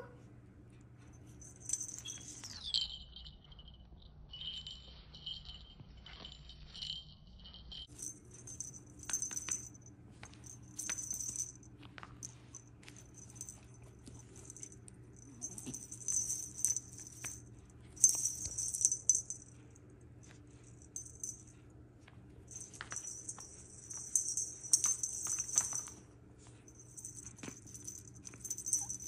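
Small jingle bells on a feather wand toy jingling in irregular bursts as a puppy chews and shakes it, mostly from about eight seconds in.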